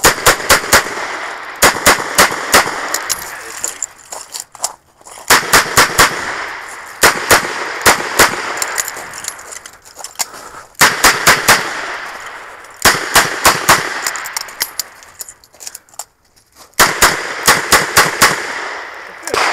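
Smith & Wesson 929 9mm revolver firing in quick strings of several shots, with short pauses between strings; each shot is sharp and loud and rings out after it.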